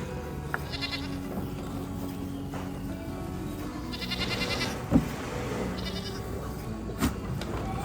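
Goat bleating three times in short wavering calls, over background music, with two sharp knocks, the first the loudest, about five and seven seconds in.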